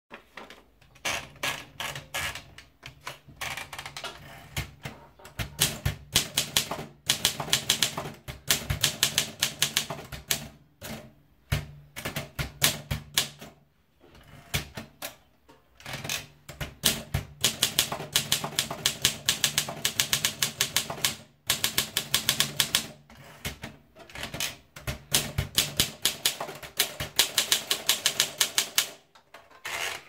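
Olympia SM2 manual portable typewriter being typed on: rapid clacking keystrokes in quick bursts separated by short pauses.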